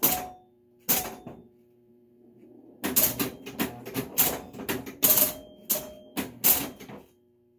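Electromechanical pinball machine in play: sharp mechanical clacks of flippers, bumpers, relays and stepping score reels. Two clacks near the start, a short lull, then a dense run of rapid clacking from about three seconds in.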